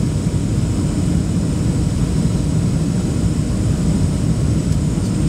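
Boeing 737-800 cabin noise on final approach with flaps down: a steady low rumble of airflow and the CFM56-7B engines, heard through the fuselage beside the wing.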